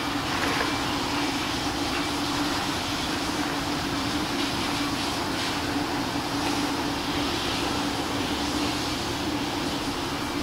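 Steady low engine drone under a broad, even rushing noise.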